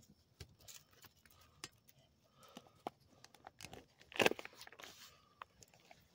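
Handling noise from a phone camera being moved and set in place: fabric rustling and scraping against the microphone, with scattered small clicks and a louder rustle about four seconds in.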